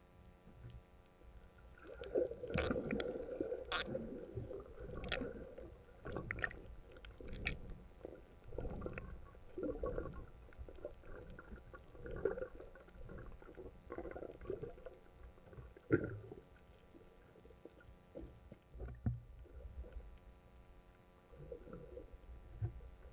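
Muffled underwater sound through an action camera's waterproof housing: irregular gurgling and rumbling of water moving against the case, with scattered sharp clicks and knocks. The clicks are busiest in the first few seconds, with one louder knock about two-thirds of the way through.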